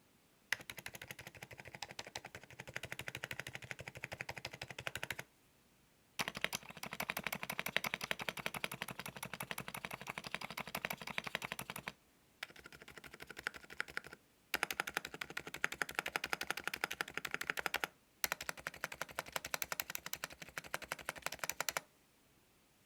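Fast typing on the Epomaker RT100 mechanical keyboard, a quick run of key clicks and clacks. It comes in several stretches, each broken off abruptly by a short silent gap.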